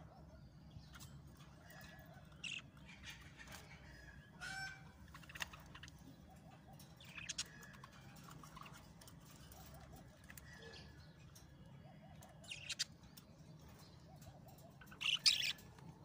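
Budgerigar chirping in short, scattered calls, with a louder burst of chirps near the end.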